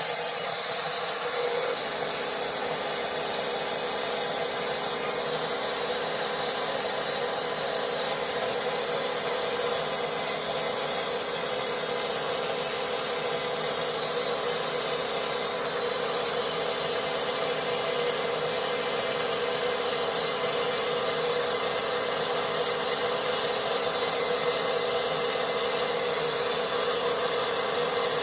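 Vapor blasting machine running, a steady, loud hiss of the pressurised water-and-abrasive jet. A steady hum joins about two seconds in.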